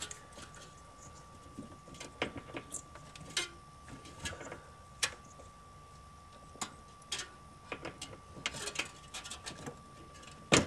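Scattered small clicks and rustles of hands handling wires and a plastic wire connector, with one sharp click near the end.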